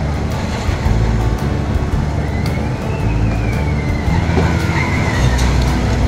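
Amusement-park background of music mixed with road traffic and a heavy low rumble. A high tone rises and falls for about three seconds in the middle.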